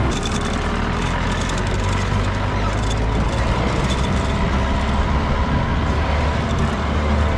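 Off-road vehicle's engine running as it drives over a rough, stony track, with rapid rattling and knocking from the body over the rocks, most of it in the first half.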